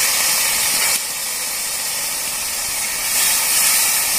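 Water poured from a small cup into a hot aluminium kadai, hissing as it hits the heated metal. The hiss eases a little about a second in and swells again with the next pour near the end.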